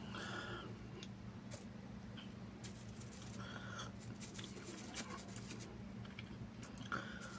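Hand-eating sounds: fingers picking through rice and chicken on a plastic sheet, with small crinkles and clicks and chewing. Three short squeaks come about three seconds apart, over a steady low hum.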